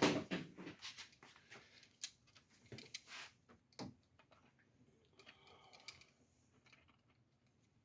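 Faint, scattered clicks and taps of hand tools and engine-bay parts being handled while a hose and its clamp are refitted. A brief faint squeak comes about five seconds in.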